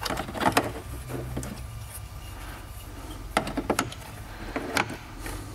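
Hard plastic clicks and rattles as a Focal door speaker is handled and seated into the plastic mount of a car door card. They come in three short clusters, about half a second in, around three and a half seconds in and a little before the end, over a steady low hum.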